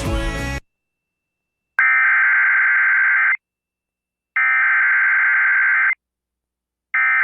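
A music track cuts off about half a second in. After a pause come three identical bursts of Emergency Alert System SAME header data, buzzy digital warbling each about a second and a half long with about a second between them, which open the next alert message.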